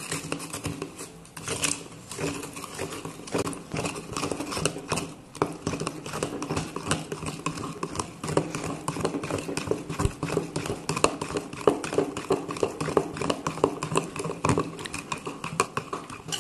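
Metal spoon stirring milk in a plastic measuring jug to dissolve powdered creamer, with many quick, irregular clicks and scrapes of the spoon against the jug.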